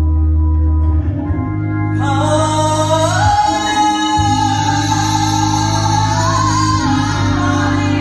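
A woman sings gospel over sustained Hammond B3 organ chords. Her voice comes in about two seconds in and holds a long high note.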